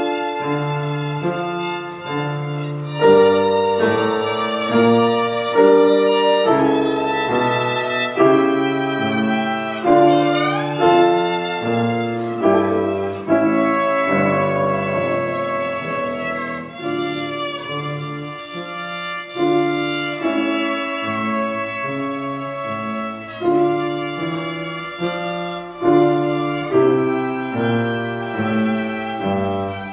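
Solo violin with grand piano accompaniment playing a classical piece, the violin carrying the melody over the piano's notes. About ten seconds in, the violin slides up in pitch.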